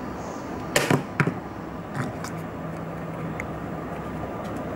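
Printed-paper kamikara pop-up robot toy being flipped open in the hands: two sharp paper snaps about a second in, then a couple of softer paper rustles, over a steady background hiss.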